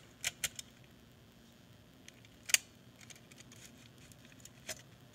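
Scattered small plastic clicks and taps as a latch that won't unlock is worked by hand. There is one sharp click about two and a half seconds in and another near the end. The latch is held stuck, which the maker puts down to rough edges on the SATA fingers.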